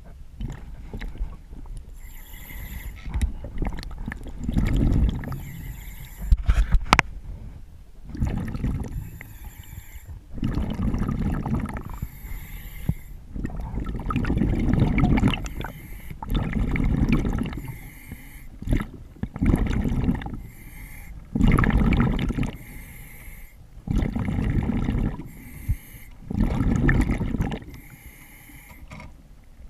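A diver breathing through a demand regulator underwater. Hissing inhalations alternate with loud, gurgling bursts of exhaled bubbles, one breath every two to three seconds. A sharp metallic click sounds about seven seconds in.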